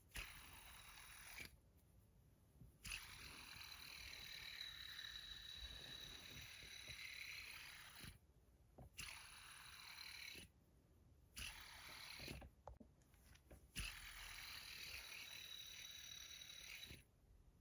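Stainless steel Edamame fidget spinner from LIC EDC, flicked and whirring faintly on its bearing, with a thin high hum. It is spun about five times; each spin starts with a click and cuts off abruptly when it is caught.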